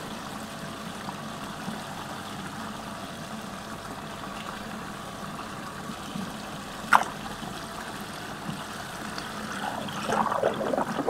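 Water swirling steadily down a whirlpool drain hole. About seven seconds in there is one sharp hit as a toy truck goes into the water, and near the end the gurgling and splashing get louder and more uneven.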